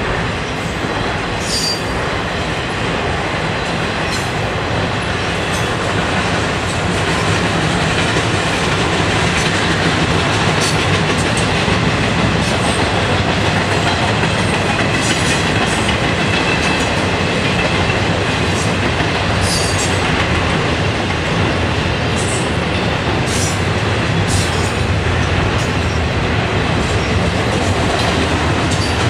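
Intermodal freight train's cars rolling past: a steady rumble and rattle of wheels on the rails, with brief sharp high squeaks now and then.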